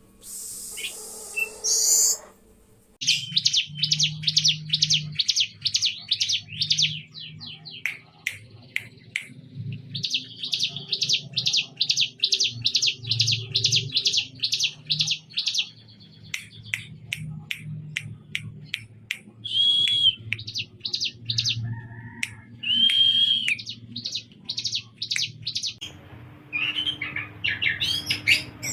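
Songbird singing in long runs of rapid, evenly repeated high notes, several a second, broken by a few short whistled notes in the second half.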